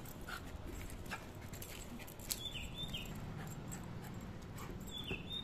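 Faint scuffs and light taps as a small dog leaps and snaps at a hand-held balloon. Two short pairs of faint high falling chirps come about two and a half seconds in and again near the end.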